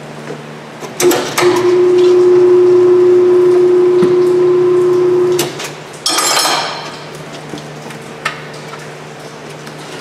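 Tire changer's turntable motor running with a loud steady hum for about four seconds while it spins the wheel to work the lower bead off the rim, then stopping. A brief hiss-like burst follows about a second later.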